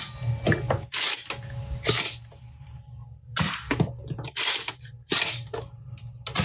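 Caliburn spring-plunger foam-dart blaster being fired and pump-primed between shots: a run of sharp thwacks and the sliding clack of the front pump racking back and forward, several times over.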